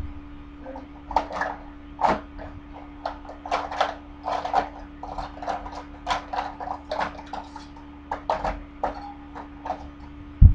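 Small objects clicking, tapping and knocking as they are picked up and handled while someone rummages for tweezers and opens the refill top of a bronzer brush, with one louder thump near the end.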